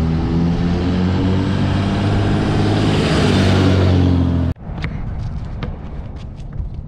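Pickup truck driving past close by, its engine running with a steady low hum that grows louder as it passes and then cuts off abruptly about four and a half seconds in. After that, a basketball bouncing on asphalt, several sharp knocks.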